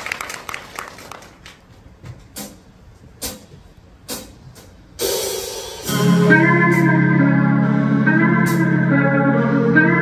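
Live pop band starting a song: applause fades, three sharp evenly spaced clicks follow, then about five seconds in the intro swells up and the full band comes in with sustained organ-like keyboard chords over a steady bass.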